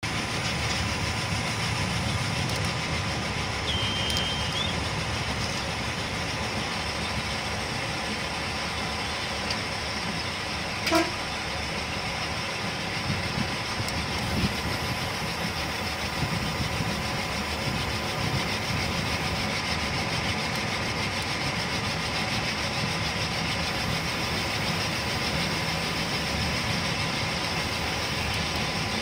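Metre-gauge work train running along the track, heard from the cab window: steady rumble of the vehicle and its wheels on the rails, with a faint steady whine. A brief, louder sharp sound about eleven seconds in.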